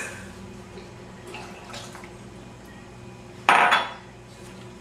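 A glass bowl clatters once, sharply and briefly, about three and a half seconds in, over quiet room sound.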